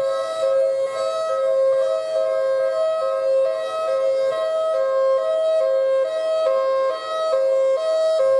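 Two-tone hi-lo siren, like an emergency vehicle's, alternating steadily between a high and a low note, each note held under half a second.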